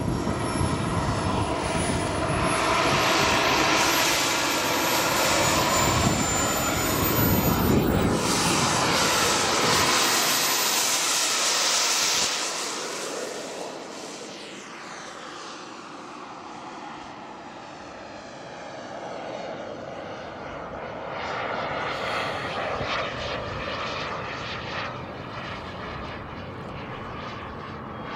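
Aircraft engine noise with a high whine gliding in pitch, loud for about the first twelve seconds. It then drops away and sweeps, as the aircraft passes and moves off.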